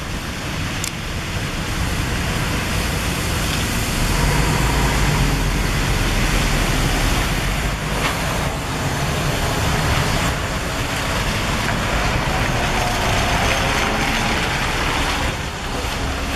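Diesel engine of an Irizar i6 intercity coach running as the coach passes close by, with a deep rumble that swells a few seconds in and stays loud, over the general noise of the bus station.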